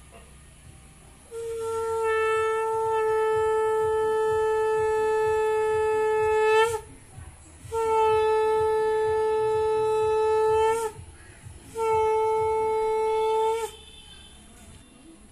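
Conch shell (shankha) blown in three long, steady blasts on one note, the first about five seconds long and the next two shorter. Each blast ends with a short upward flick in pitch.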